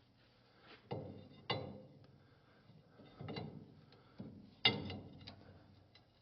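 Large steel wrenches clanking against each other and a hydraulic fitting as they are set up on an over-tight fitting: about five separate metallic knocks with a short ring, the sharpest near the end.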